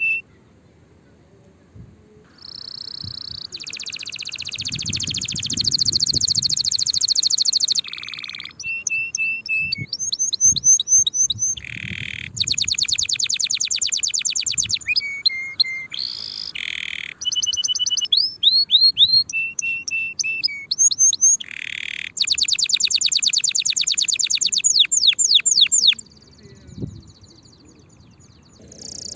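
Domestic canary singing: a long song of high, rapid trills and rolling runs of repeated sweeping notes, in phrases broken by short pauses. It starts about two seconds in and goes quiet again near the end.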